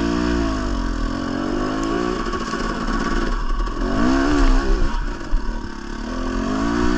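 Dirt bike engine running close by, its revs rising and falling repeatedly with the throttle; the sound cuts off abruptly at the very end.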